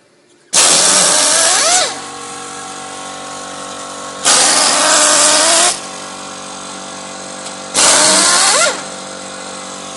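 A power drill used as a screw gun, run in three bursts of a second or so each, spinning up and winding down as it drives out the bolts. A steady machine hum runs between the bursts.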